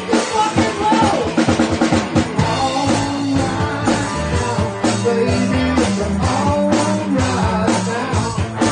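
A rock song with a drum kit and singing.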